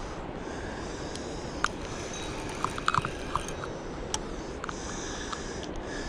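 Spinning reel being cranked to reel in fishing line, giving scattered light clicks over a steady background rush.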